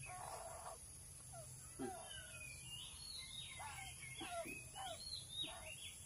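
Crow calling again and again in short calls while being hand-fed, the calls of a hungry bird, with more of them in the second half. Other birds chirp higher behind it over a steady high hiss of insects.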